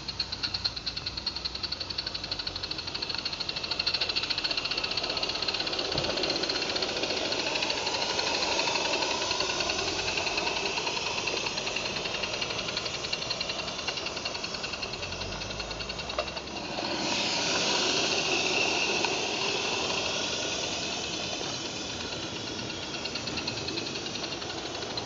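Roundhouse 'Jack' 0-4-0 live-steam garden-railway locomotive working hard, with rapid steady exhaust chuffs and steam hiss, as its train of sand wagons rattles over the track. The sound changes abruptly and gets louder about 17 seconds in.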